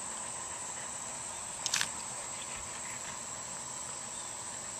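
A single sharp metal click about two seconds in as needle-nose pliers grip and turn the side saddle's mounting nut on the shotgun receiver, over a steady high-pitched background hiss.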